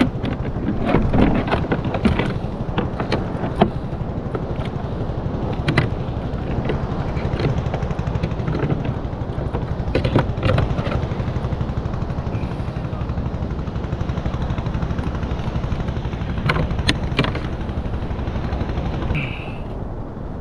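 Steady wind rumble on the microphone, with scattered sharp clicks and knocks as a caught fish and fishing tackle are handled on a plastic kayak.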